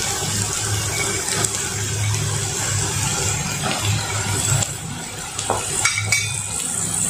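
Potato sticks dropped into a hot kadhai of onions, ginger-garlic paste and nuts frying in ghee, with a steady sizzle and a low hum underneath, and a few light knocks near the end.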